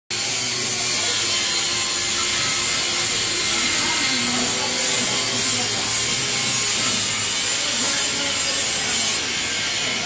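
Steady, loud hissing background noise, strongest in the treble, easing slightly about nine seconds in, with faint indistinct sounds beneath it.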